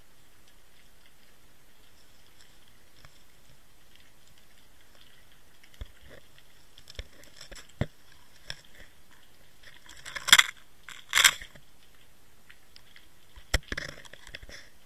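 Water Wolf inline underwater camera rig on a fishing line, heard from inside its housing as it knocks and scrapes over stones on the seabed. There are scattered sharp clicks over a faint hiss, two loud rattling scrapes about ten and eleven seconds in, and another burst of clicks and rattling near the end.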